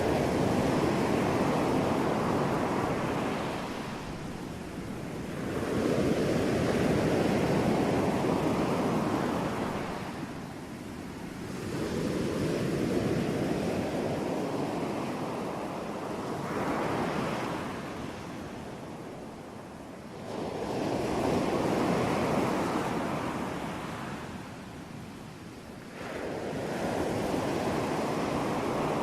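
Ocean waves breaking and washing up the shore in a slow, even rhythm, one surge every four to six seconds.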